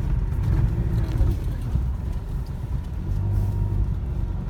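Car driving over a rough, broken dirt road: a continuous low rumble of engine and tyres, with a steadier engine hum coming in about three seconds in.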